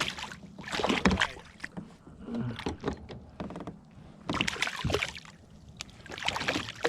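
Water splashing and sloshing against a kayak in three or four separate bursts, with a few light knocks mixed in.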